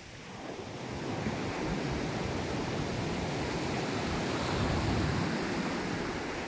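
Sea surf on the shore: a wave swells in over a few seconds, building to a peak and easing off near the end.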